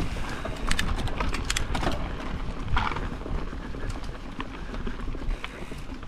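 Mountain bike rolling down a dirt trail: a steady low rumble of tyres and air, broken by many sharp, irregular clicks and rattles from the bike over bumps.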